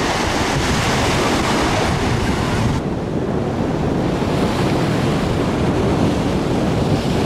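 Sea surf washing onto a sandy beach, with wind buffeting the microphone in a steady low rumble. About three seconds in, the hiss of the surf drops away abruptly, leaving mostly the wind rumble.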